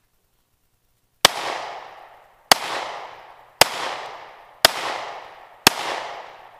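Five shots from an FN Five-seveN pistol firing 5.7x28mm SS195LF rounds, spaced about a second apart. Each sharp crack is followed by an echo that fades over about a second.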